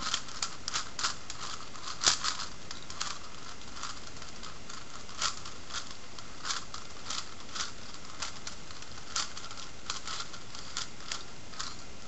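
Plastic clicks and clacks of a 5x5x5 Rubik's cube's layers being turned by hand, irregular and busiest in the first three seconds, over a steady background hiss.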